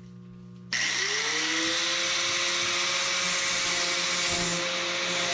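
Electric angle grinder switched on about a second in, its whine rising quickly as it spins up, then running steadily.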